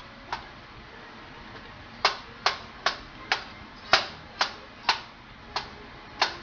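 A plastic slotted spoon tapping and knocking against a nonstick frying pan while it breaks up and pushes butter around in the sauce. There is a single click early on, then about nine sharp taps at roughly two a second from about two seconds in.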